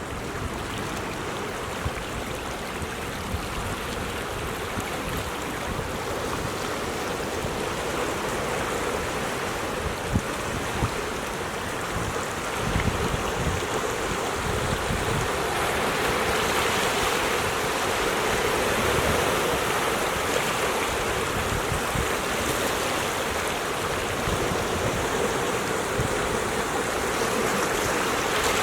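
Ocean surf washing against a rocky coast: a steady rushing roar of water that swells louder about halfway through as bigger waves come in.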